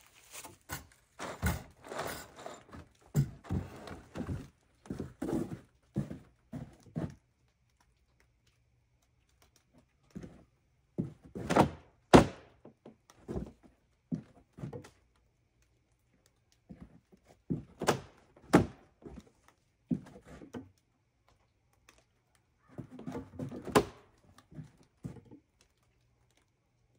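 Irregular thunks and knocks in bursts separated by pauses, the loudest and sharpest a little under halfway through.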